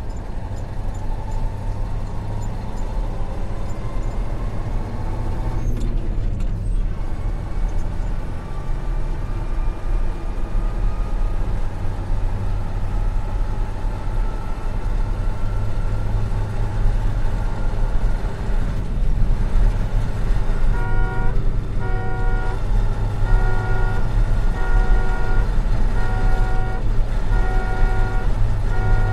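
Truck engine heard from inside the cab, running under load with its pitch rising slowly, with a short break about six seconds in as if changing gear. About two-thirds of the way through, the truck's horn starts sounding in a string of short blasts, about one a second.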